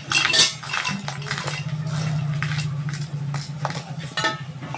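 Stainless-steel mixer-grinder jar being handled and knocked against hard surfaces: a string of metallic clinks and knocks with a short ring, the loudest just under half a second in. A steady low hum runs underneath.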